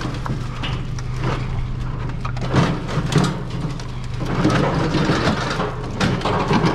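A vehicle engine idling with a steady low hum, under repeated clanks, knocks and scrapes of scrap being handled.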